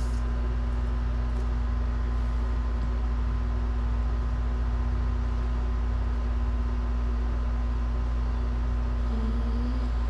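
A steady low mechanical hum with faint steady higher tones over it, and a brief faint rising tone near the end.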